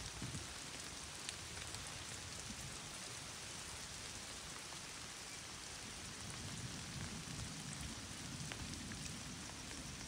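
Steady rain falling, an even hiss scattered with small drop ticks. A low rumble swells in the last few seconds.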